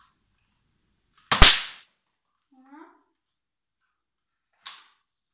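A bang snap glued to the tip of a Nerf dart goes off with one loud, sharp crack about a second and a half in, as the dart hits. A shorter, fainter crack follows near the end.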